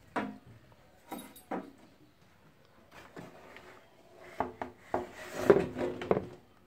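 Hands handling the plastic dash panel around a tractor's instrument cluster: a string of knocks, clacks and rubbing, busiest and loudest in the last two seconds or so.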